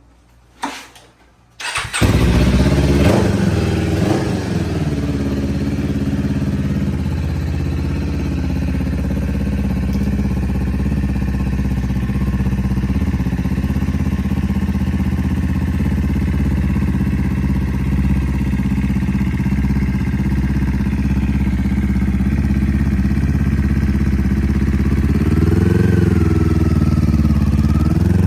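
Kawasaki Ninja 500 parallel-twin engine starting up through a cheap aftermarket muffler: two short bursts of cranking, then it catches about two seconds in with a quick rev and settles into a loud, steady idle. Near the end the throttle is blipped a couple of times.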